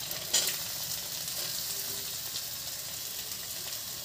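Chopped onions sizzling in hot oil in a steel kadhai, a steady hiss, with one sharp click about a third of a second in.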